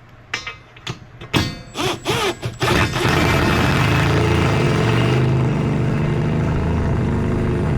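A few metal clicks and knocks, then from about three seconds in a power tool's motor runs loud and steady for about five seconds, driving a bolt tight on the Unistrut roof rack.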